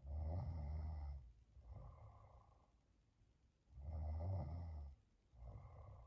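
A sleeping woman snoring: two loud, rumbling snores about four seconds apart, each followed by a softer breath.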